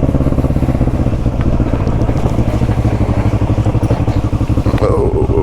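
Motorcycle engine running at a steady, even pace while riding. A brief falling tone sounds near the end.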